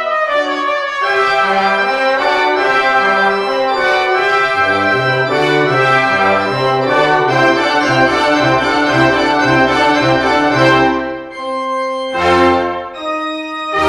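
Pipe organ and a brass ensemble with trumpet and tuba playing full, sustained chords together in a classical piece. A repeated bass note pulses beneath the chords midway, then the sound briefly thins before loud chords return near the end.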